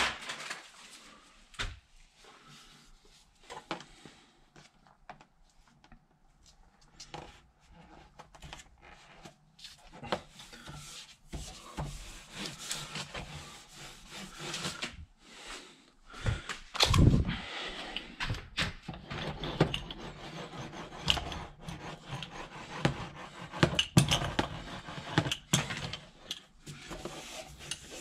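Rustling, crinkling and scattered taps of a foil-faced StP sound-deadening sheet being handled and wrapped around a plastic sewer pipe. Sparse at first, busier in the second half, with a louder thump about 17 seconds in.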